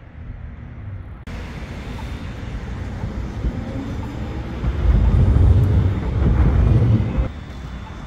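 Outdoor city street traffic with a heavy low rumble, like a vehicle passing close. It starts abruptly about a second in, swells to its loudest between about five and seven seconds, and drops off suddenly near the end.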